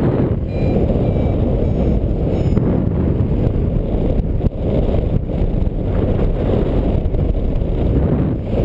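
Airflow buffeting the microphone of a paraglider pilot's harness-mounted camera in flight: a steady, loud, low rumble of wind.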